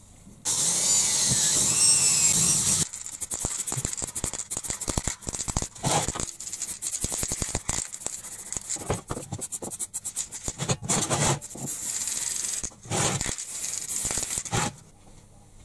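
A cordless drill runs for about two seconds near the start, then an aerosol spray-paint can rattles as it is shaken, its mixing ball clicking, and hisses in short spray bursts near the end.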